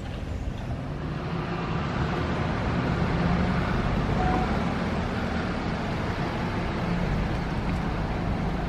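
Car engine and road noise: a steady low rumble that swells slightly about two seconds in.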